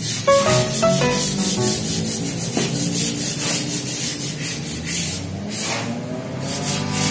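Rhythmic rubbing or scraping strokes against a hard surface, about four a second, over background music whose melody drops out in the middle and returns near the end.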